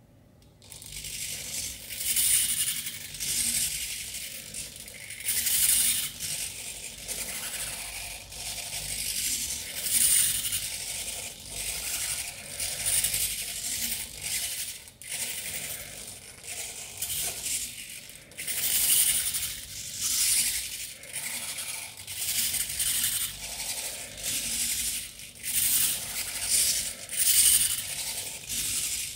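Micro servo motors of a small robotic arm whirring and buzzing in short, irregular bursts as the joints move, each burst starting and stopping with the motion.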